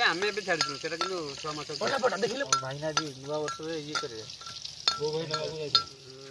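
Sharp knocks of vegetables being cut against a boti blade and a pestle pounding in a mortar, a few irregular strikes a second, under a continuous wavering, voice-like pitched sound.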